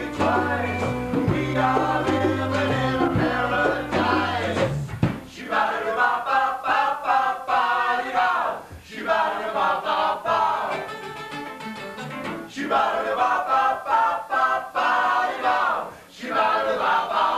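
A small band playing live, with guitars, bass and drums. A steady bass line runs for about the first five seconds; then the bass drops out and a higher melody carries on over the guitars.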